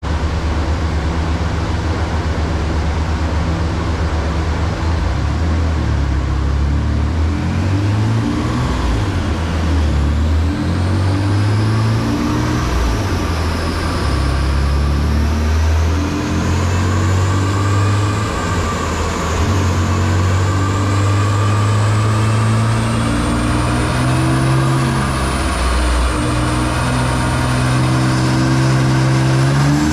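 Mitsubishi 3000GT twin-turbo V6 running on a chassis dyno, held at steady engine speeds that step up and down, with a high whine wavering above the engine note. Right at the end the revs start climbing sharply as a pull begins.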